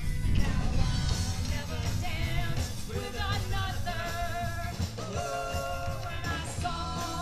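Rock-and-roll music with a singing voice over a full low bass backing.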